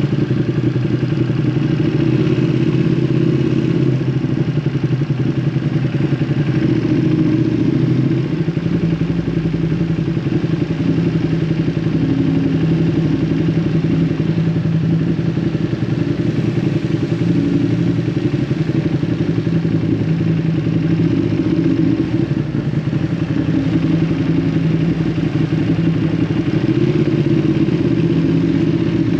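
Ducati Panigale V2's 955 cc Superquadro V-twin running through an Akrapovic exhaust while being ridden, holding fairly steady revs, with a brief dip about eight seconds in.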